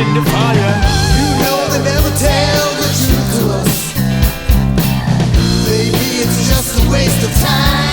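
Rock music with a steady drum beat, bass and electric guitar, with a wavering lead melody over it.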